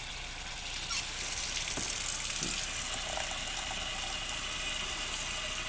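Kitchen tap running into a metal saucepan holding meat and tomato sauce; the water comes on about a second in and then runs with a steady splashing hiss as the pot fills.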